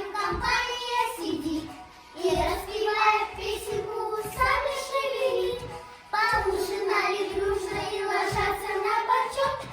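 A child singing a song over musical accompaniment, in sung phrases with short pauses for breath about two and six seconds in.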